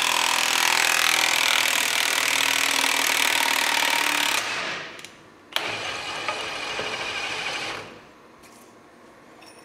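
Cordless impact wrench running on the forcing screw of a ball joint press, pressing an old compliance bushing out of a Honda/Acura control arm. It runs steadily for about four and a half seconds and stops, then after a sharp click it runs again, quieter, for about two seconds.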